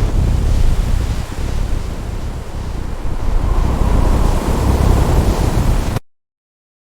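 Strong blizzard wind blowing, a loud steady rushing noise that starts abruptly and cuts off to silence about six seconds in.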